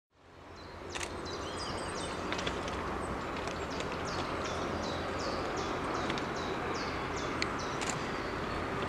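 Birds singing, one repeating quick falling whistled notes, over a steady low rumble from a distant approaching class 810 diesel railcar.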